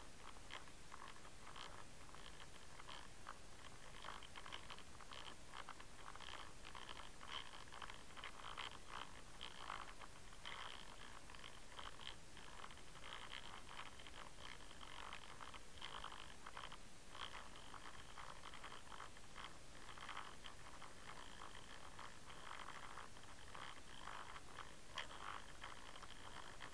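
Faint water noise picked up by an underwater camera being pulled through the water on a fishing line, with many small irregular clicks and scrapes throughout.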